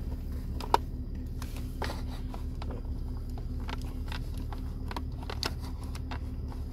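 Small clicks and scrapes of a plastic pry tool and fingers working the cup holder trim panel, with one sharper click about a second in, over a steady low hum.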